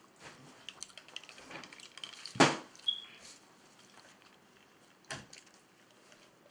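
Small clatters and rustles of eating at a table, with one sharp knock about two and a half seconds in, a brief squeak just after it, and a lighter knock about five seconds in.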